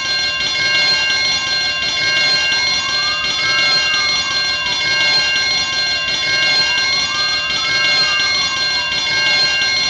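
Fire alarm bell ringing continuously and loudly, its ring held steady with no breaks. Under it, a fainter tone slowly rises and falls, about once every four seconds.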